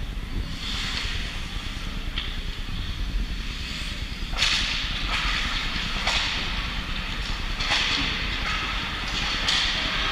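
Ice skate blades scraping hard on the ice in several short hissing bursts from about halfway in, over a steady rink rumble.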